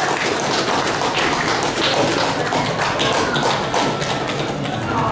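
Applause: several people clapping steadily.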